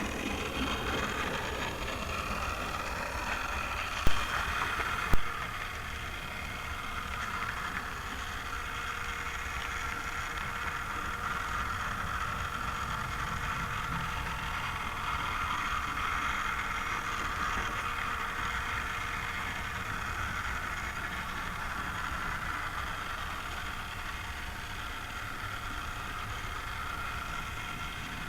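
Model train running on the track: a steady motor and wheel noise, with two sharp clicks about four and five seconds in.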